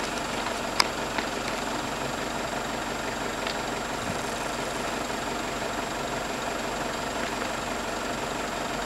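Low-voltage (230 V) short circuit in an old oil-filled cable running up a utility pole, the fault arcing and burning with a steady rushing hiss and a few sharp crackles in the first few seconds.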